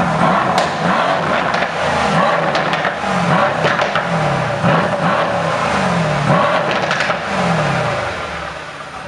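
Mercedes-AMG C63 S twin-turbo V8 exhaust being revved over and over, each rev falling back in pitch, with a few sharp crackles from the exhaust. The revving dies down near the end.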